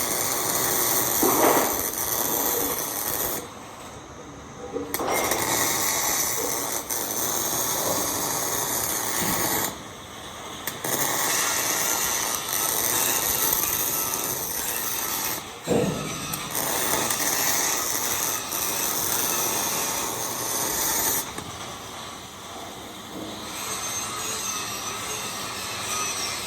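MIG welding arc crackling and hissing in runs of several seconds, broken by short pauses between welds.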